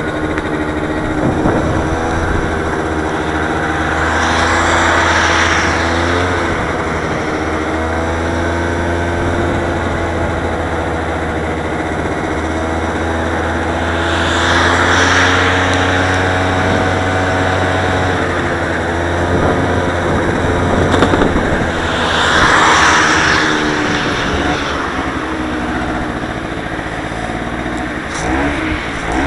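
Scooter engine running steadily under way, its pitch drifting up and down with speed, with a low rumble of wind on the microphone. Cars pass on the road alongside three times, near the start, in the middle and about three quarters of the way through.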